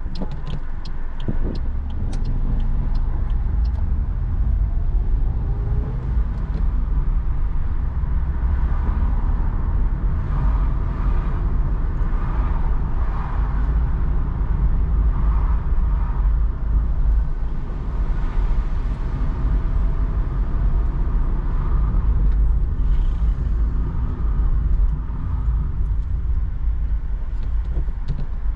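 Car driving on a wet road, heard from inside the cabin: a steady low rumble of engine and tyres, rising in pitch a few seconds in as the car pulls away and picks up speed. A quick run of clicks near the start.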